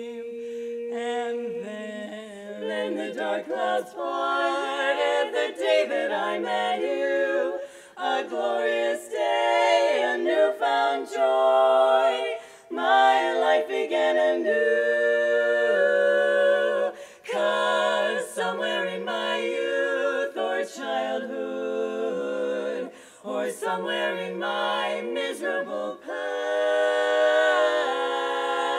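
Women's barbershop quartet singing a cappella in close four-part harmony: phrases of sustained chords broken by short pauses for breath.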